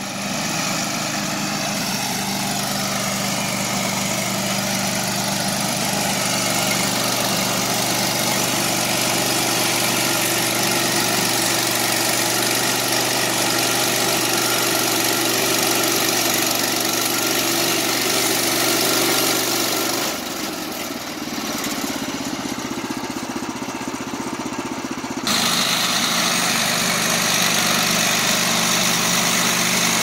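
Gasoline engine on a TMG Industrial TMG-PSM28 portable bandsaw sawmill running steadily. About two-thirds of the way through the sound dips and thins for some five seconds, then comes back suddenly.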